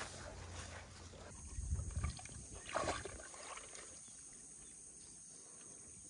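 A dog panting briefly at first, then splashing, squelching steps through shallow muddy water, loudest about two and three seconds in and quieter after, over a faint steady high-pitched tone.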